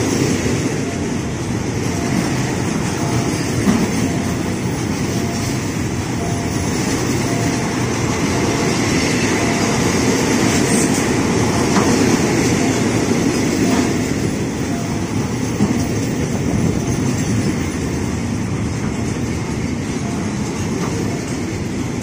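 Freight train of tank wagons rolling past close by: a steady rumble and rattle of steel wheels on the rails, with a few sharp clacks at rail joints.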